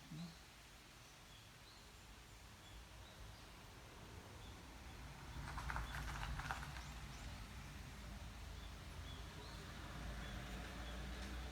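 Faint steady low hum of a house's small ventilation fan, growing louder about halfway through. Short high chirps repeat roughly once a second over it, and a brief rustle comes near the middle.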